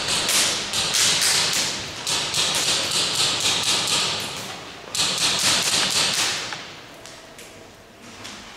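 Airsoft guns firing full-auto: three long bursts of rapid sharp shots, the last starting about five seconds in, then only a few scattered clicks.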